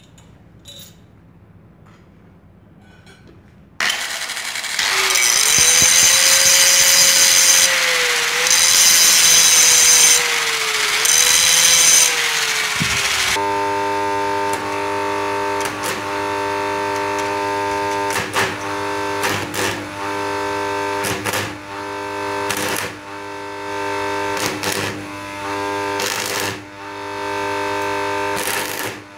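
Stick (arc) welding on a steel sander part held in a vise. After a few quiet seconds comes a loud crackling hiss for about ten seconds. Then the welder hums steadily, with repeated short crackles and sputters as the electrode strikes the arc.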